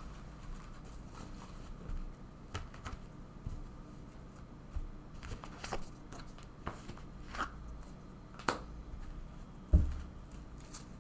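Tarot cards being handled on a table: scattered light taps and rustles of the cards, with one heavier thump near the end.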